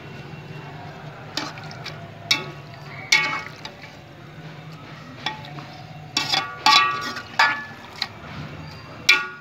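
Steel spoon stirring raw beef mince with onions and tomatoes in an aluminium cooking pot, scraping and clanking against the pot's side. The strikes ring briefly: a few single ones, then a quick cluster about six to seven seconds in, and one more near the end.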